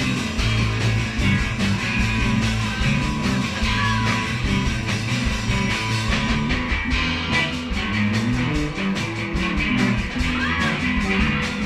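Rock jam by a band of guitars, bass and drums: steady busy drumming under bass and electric guitar, with bent lead-guitar notes about four seconds in and again near the end.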